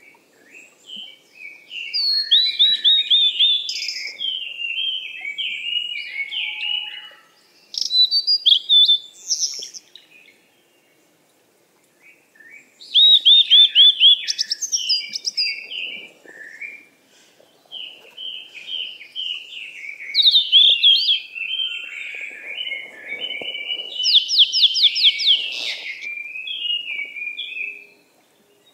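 A songbird singing long, varied phrases of quick chirps with rapid runs of falling notes, in several bursts with a pause of about two seconds near the middle.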